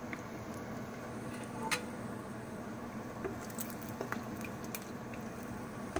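Falafel deep-frying in a pot of hot oil, sizzling steadily with scattered small pops and crackles.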